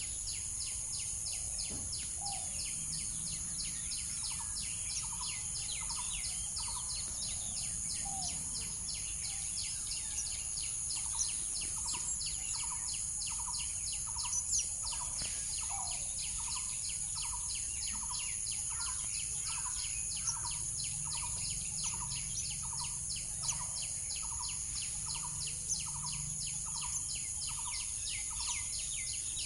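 Outdoor chorus of birds and insects: a steady high buzzing, a fast even pulsing trill, and a short call repeated about once a second, with scattered brief chirps.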